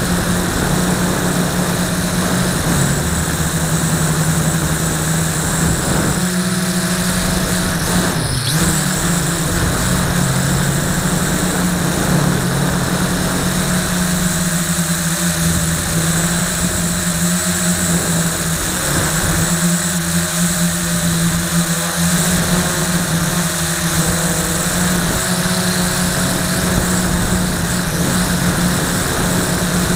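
LaTrax Alias hobby quadcopter's electric motors and propellers buzzing steadily in flight, heard close up from a camera strapped to the frame. The buzz sits over a dense rushing hiss, and its pitch shifts slightly now and then as the throttle changes.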